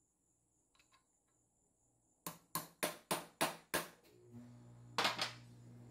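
Ball-peen hammer gently tapping a steel socket that drives a 6000ZZ ball bearing into a BLDC trimmer motor's housing, pressing only on the outer race. A quick run of six metallic taps starts about two seconds in, and two more taps follow about a second later.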